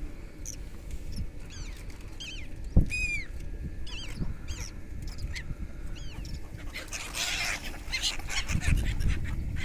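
Birds calling: many short, sharp chirps and arching whistled notes repeating throughout. There is a sharp knock about three seconds in and a low rumble near the end.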